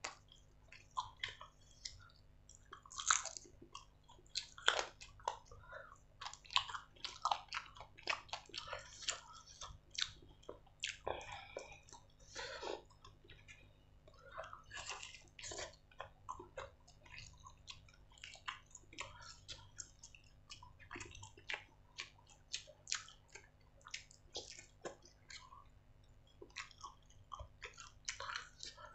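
Close-miked chewing and biting of a person eating stir-fried instant noodles and grilled chicken: irregular wet smacks and mouth clicks, louder and denser in the first half.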